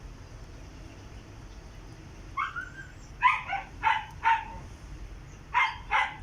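A dog barking: a run of short, sharp barks starting about two seconds in, a pause, then two more near the end, over a low steady rumble.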